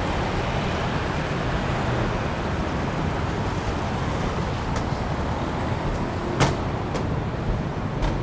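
Steady city road-traffic noise rising from the streets below the footbridge, with a few sharp knocks in the second half, the loudest about six seconds in.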